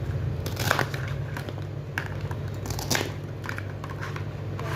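Toy play-food pieces being cut apart with a plastic toy knife on a toy cutting board: a few short crackly tears and clicks, the loudest about a second in and again about three seconds in.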